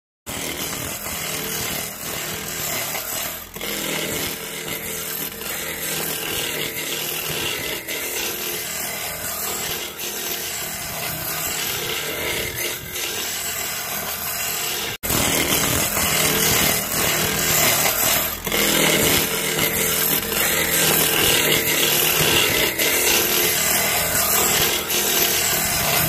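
Wood lathe running while a turning chisel cuts into a spinning wooden handle blank: a continuous rough scraping of wood being shaved. About halfway it cuts off for an instant and comes back louder.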